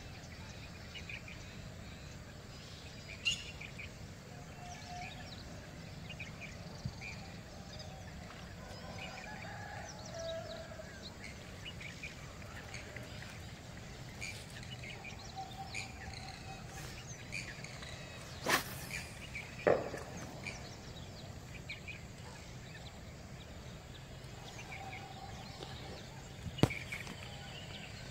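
Outdoor ambience: steady low background noise with scattered short bird chirps, broken by a few sudden sharp knocks, the loudest a pair about two-thirds of the way in and another near the end.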